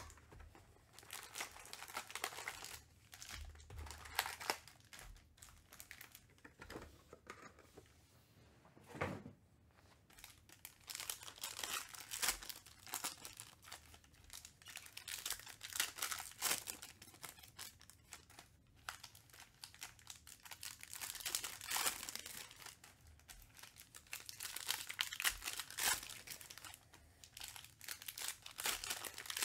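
Plastic trading-card pack wrappers being crinkled and torn open by hand, in irregular bursts of rustling with a short lull about a third of the way in.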